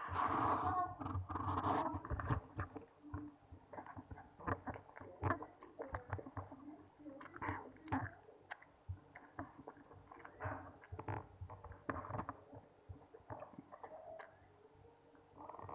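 Close-up eating sounds: mouth chewing food, with many small, irregular wet clicks and smacks. The first couple of seconds are louder.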